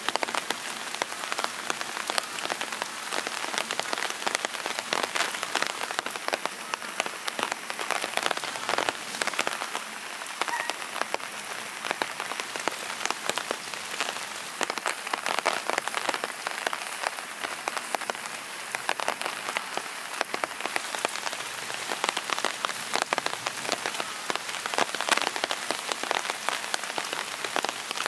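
Steady rain, with a dense scatter of individual drops ticking.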